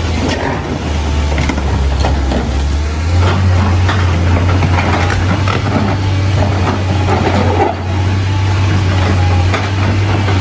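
Excavator diesel engine running steadily under load; its pitch steps up about three seconds in. Scattered knocks and scraping come from the bucket pushing a heavy concrete post.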